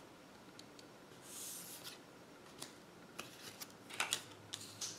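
Paper flash cards handled on a wooden tabletop: a soft slide about a second in, then a few light taps and rustles as a card is picked up and another put down.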